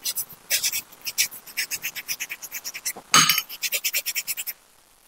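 A brush scrubbing a metal engine part in quick back-and-forth strokes, about five a second, with a louder metallic clink about three seconds in.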